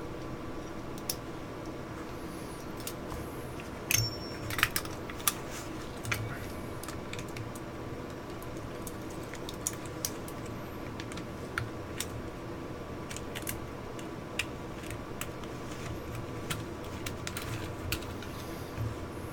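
Small steel and polymer parts of a Glock pistol clicking and clattering as they are handled and fitted by hand. The clicks are irregular and sharp, with a cluster of louder ones about four to five seconds in.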